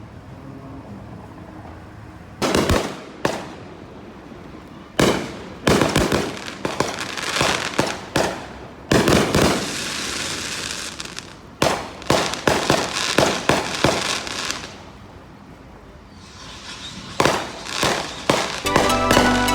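Fireworks going off in clusters of sharp bangs with crackling between them, a short lull about two-thirds of the way through, then more bangs. Music begins right at the end.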